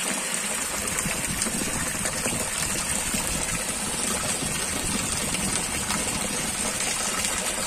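Heavy rain falling steadily, a continuous even rushing hiss with no breaks.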